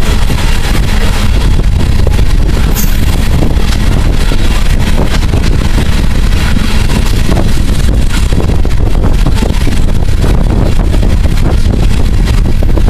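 Loaded coal hopper cars of a freight train rolling past close by: a steady, loud rumble and clatter of steel wheels on the rails, with wind on the microphone.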